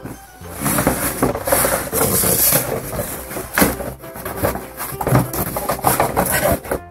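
Cardboard toy box being handled and opened by hand, with the end flap pulled open and cardboard rubbing and scraping in irregular scuffs and knocks.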